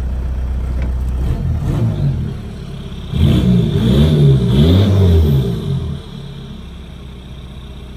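Volkswagen 1.9 TDI ALH four-cylinder turbodiesel idling, then revved: the pitch climbs and falls a couple of times about three seconds in, and it settles back to idle near six seconds.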